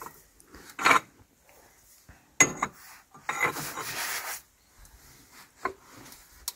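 Screw-type cylinder liner puller being cranked with a long bar under heavy load: a few sharp creaks and clicks, with about a second of grinding scrape in the middle, from the puller screw straining and the wooden blocks under its legs creaking.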